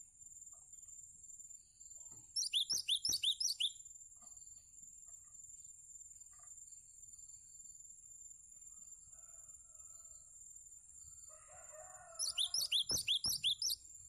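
Cinereous tit (gelatik batu) singing: two bursts of about eight rapid, sharp, high notes, each note falling in pitch, the bursts about ten seconds apart.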